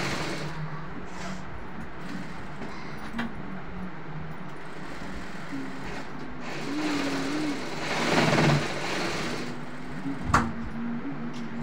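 Jack industrial sewing machine running as fabric is stitched, its motor hum shifting in pitch over a steady workshop noise, loudest about eight seconds in, with two sharp clicks near three and ten seconds in.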